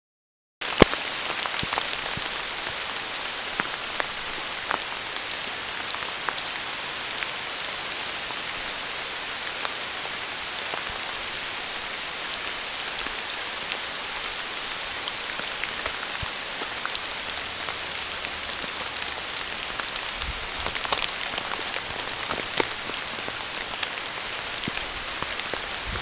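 Steady rain falling, a constant hiss with scattered sharp drop ticks, starting abruptly about half a second in. A few low thumps come past the middle.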